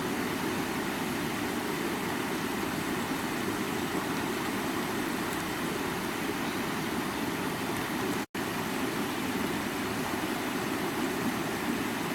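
Water of a creek running in a steady, even rush, with a split-second dropout to silence about eight seconds in.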